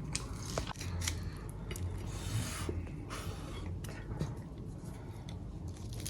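Biting and chewing crispy fried chicken skin: a run of sharp crackles, then two longer crunches about two and three seconds in.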